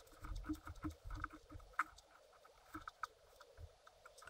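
Irregular light clicks and taps, a few a second, with soft low knocks in the first half: small objects being handled by hand.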